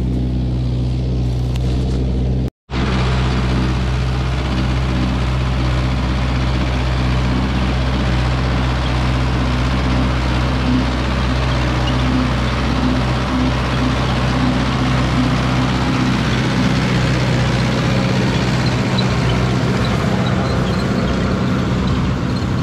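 Tractor diesel engine running steadily under load as it pulls a rotary tiller through dry rice stubble, churning it into the soil. The sound cuts out completely for a moment about two and a half seconds in.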